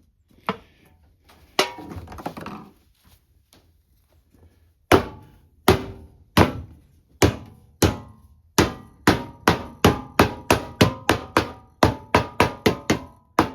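Some handling rustle, then about twenty hammer blows on metal that ring briefly, starting slow and quickening to about three a second.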